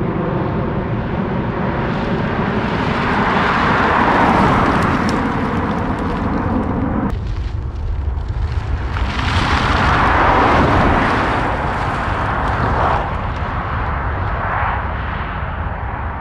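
Tyre and road noise from a passing Tesla Model S Plaid, swelling and fading twice, about four seconds in and again around ten seconds. Under it is a steady rumble of wind on the microphone.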